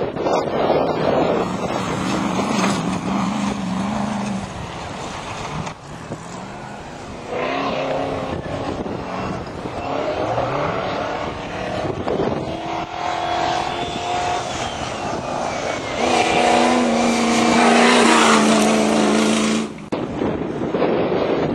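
Off-road racing 4x4 engines revving hard, their pitch rising and falling as the vehicles accelerate and ease off, with breaks where different shots are joined. The first few seconds carry more of a noise haze than the rest.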